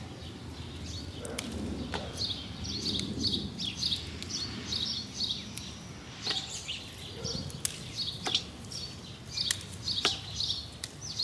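Small songbirds chirping over and over, short high notes coming in quick clusters, with a few sharp clicks and rustles from close handling.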